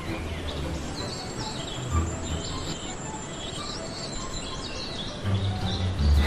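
Small birds chirping repeatedly over an outdoor background hiss, with a few low thumps.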